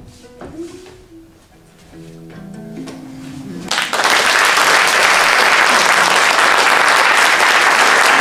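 Acoustic guitar picking a few soft notes. About four seconds in, an audience breaks into loud, steady applause.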